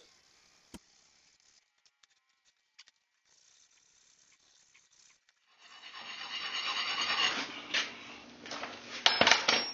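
Near silence for the first half, then a file scraping and rasping against soft insulating firebrick, with a few sharper strokes, as the forge's burner hole is filed out to size.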